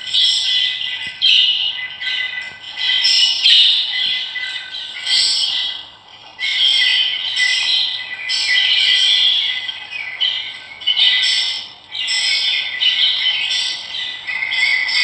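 A flock of birds chattering and squawking in dense, overlapping bursts, high-pitched and continuous.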